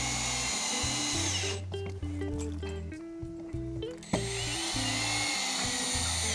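Cordless drill driving hidden-clip decking screws down into the joist at low speed: a steady whine that slides down as the first screw is finished about a second and a half in, then a second run from about four seconds in. Background music throughout.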